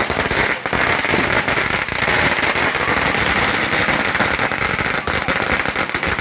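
Ground bloom flower fireworks going off: dense, rapid crackling over a steady hiss.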